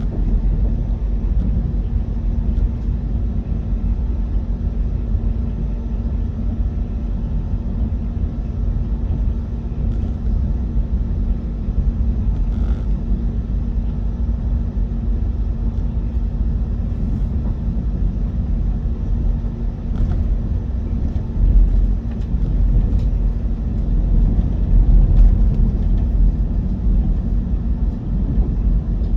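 KTX-EUM electric train running: a steady low rumble with a faint constant hum.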